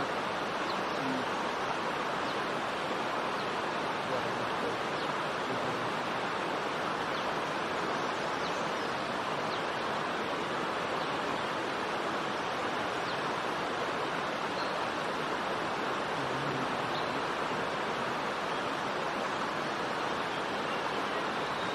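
Steady rushing of flowing water, like a stream, holding an even level throughout, with a few faint short high chirps over it.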